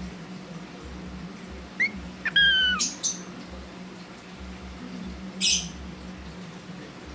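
Cockatiel calling: a short rising chirp, then a whistled note that slides slightly down, followed by a harsh squawk, and another squawk about two and a half seconds later. A steady low hum sits underneath.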